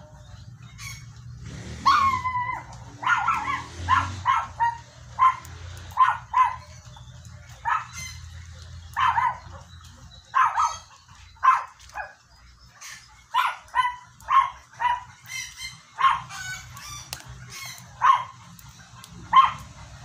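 A dog yipping again and again in short, high-pitched yelps, most about a second apart, starting about two seconds in with a longer whining one, over a steady low background rumble.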